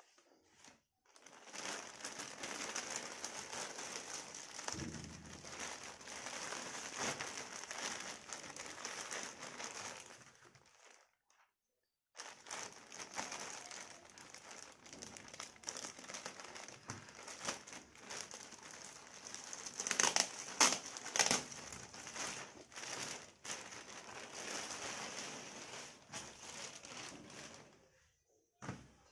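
Thin plastic packaging crinkling as a courier mailer and a clear polythene bag are handled, cut open with scissors and pulled apart. The crinkling breaks off for about a second near the middle and has a few sharper crackles a little after that.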